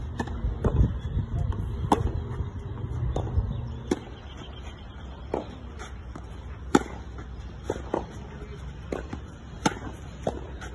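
Tennis balls struck by rackets in a clay-court rally: sharp pops of ball on strings, roughly one a second, some louder than others. A low rumble drops away about four seconds in.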